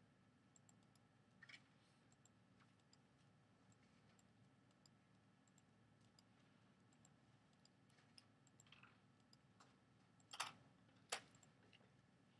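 Near silence: a faint low room hum with a few scattered soft clicks, and two sharper clicks about a second apart near the end.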